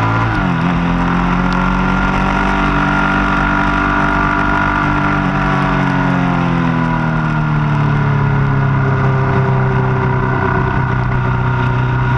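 Motorcycle engine pulling at road speed, with wind rush over the machine. About half a second in the pitch drops sharply as it shifts up a gear, then climbs slowly as the bike accelerates. In the second half it eases down again as the throttle comes off.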